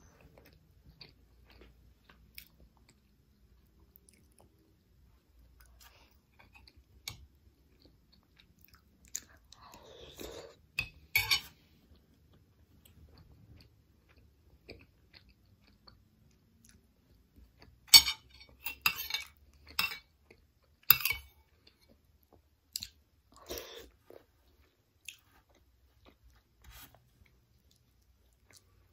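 A person chewing a mouthful of soft glutinous rice and durian in coconut-milk kolak, with sharp mouth clicks and smacks that bunch together about a third of the way in and again, louder, about two-thirds in.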